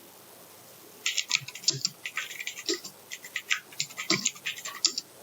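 Typing on a Gamdias Hermes M5 mechanical keyboard: a fast, irregular run of clacking keystrokes that starts about a second in.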